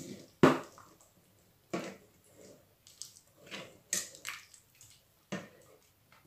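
A ladle stirring broth in a stainless steel stockpot: liquid sloshing, with irregular short knocks of the ladle against the pot. The loudest knock comes about half a second in.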